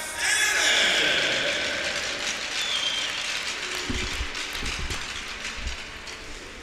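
Crowd applause in an ice rink's stands, starting suddenly at full strength and slowly dying away, with a few low thuds about four to six seconds in.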